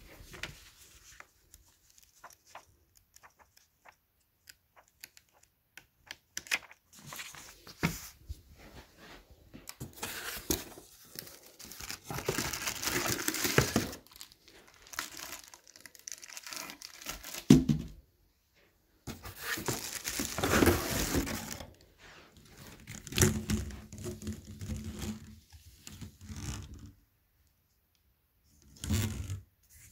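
Plastic packaging bags crinkling and tearing as parts are pulled out of a cardboard box and unwrapped, in two louder stretches of a few seconds each, between light handling clicks and knocks.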